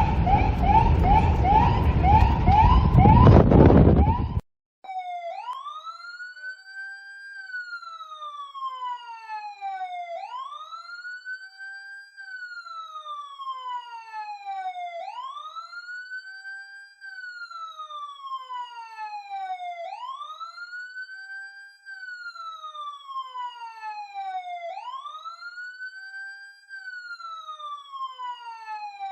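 Police siren sounds. For about four seconds a fast yelping siren rises in pitch about twice a second over loud rumbling noise, then cuts off suddenly. After a brief silence a clean wailing siren takes over: each cycle rises quickly and falls slowly, repeating about every five seconds.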